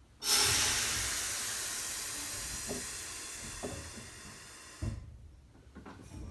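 Streetcar air brake venting compressed air in a loud hiss that starts suddenly, fades slowly over about four seconds and cuts off with a short thump: the brake cylinder exhausting as the self-lapping foot brake is released.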